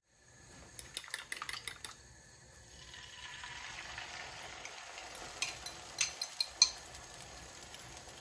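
Beaten egg poured into a hot frying pan and sizzling, a steady hiss that builds from about three seconds in. A metal utensil clinks and scrapes against the bowl and pan, with a cluster of clinks about a second in and a few sharper ones later on, the loudest near the middle.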